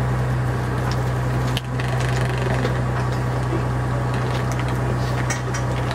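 Steady low engine hum of a vehicle idling, with scattered small clicks and knocks over it.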